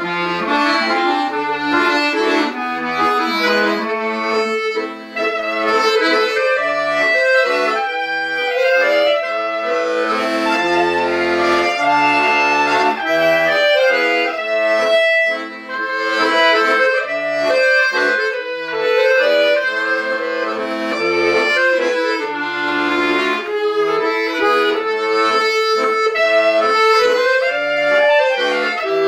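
Diatonic button accordion and B-flat clarinet playing a mazurka together in three-time. The accordion carries the melody and chords over regular bass notes, and the clarinet plays alongside it.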